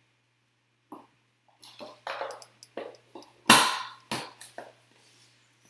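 Hands handling a small cardboard trading-card box: a few light taps and rubs, then two louder sharp scrapes or knocks about halfway through, followed by a couple of faint ones.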